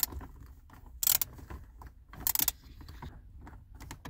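Small hand ratchet with a Torx 20 bit clicking in three short bursts about a second apart, backing out a dash panel screw.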